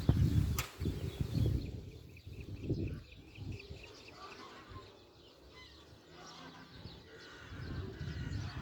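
Outdoor countryside sounds: a bird's quick run of short repeated chirps about two seconds in, with fainter chirps later, over an irregular low rumble that is loudest at the start.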